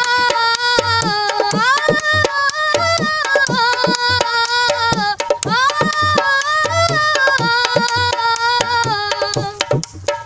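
Instrumental break in a Punjabi song: a melody line with rising pitch slides over a drum beat.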